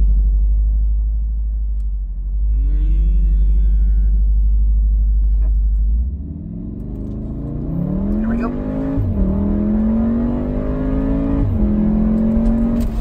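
Inside the cabin of a stock 2015 Volkswagen Golf R: the 2.0-litre turbocharged four-cylinder drones at a standstill, held at a little under 2,000 rpm. About six seconds in it launches and revs up hard under full acceleration, the note rising steeply and dropping twice at quick dual-clutch upshifts near the end.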